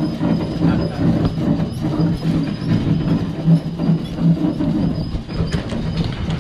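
A boat engine running, a steady low drone with an uneven, rumbling texture. A few light clicks come near the end.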